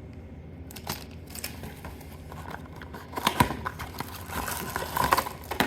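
Plastic packaging crinkling and rustling as small accessories are handled out of a box, with a sharp knock about three and a half seconds in and a few small clicks after it.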